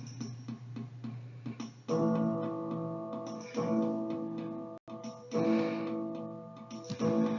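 Background music on acoustic guitar: quick picked notes, then four full chords strummed about a second and a half apart, each left to ring out.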